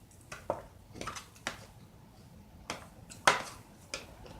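Eating utensil clicking and scraping against a plate or bowl of salad: a handful of separate clicks, the loudest a little past three seconds in.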